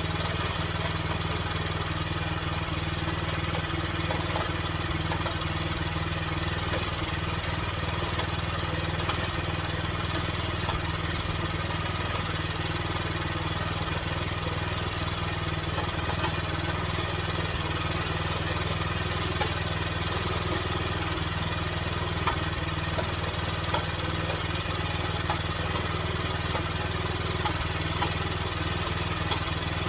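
Engine of a Norwood Frontier OS23 portable bandsaw mill running steadily, with a few faint clicks.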